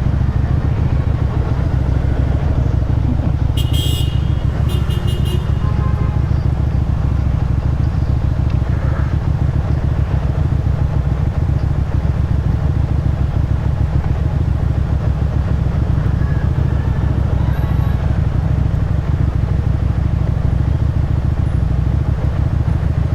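Motorcycle engine and exhaust running steadily under way, heard from the rider's position. About four and five seconds in, two short high-pitched tones sound, like toots of a horn.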